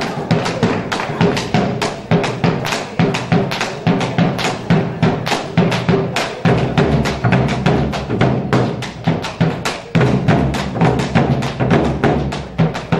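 Argentine folk music played with quick, dense drum strokes; a low bass comes in about halfway through.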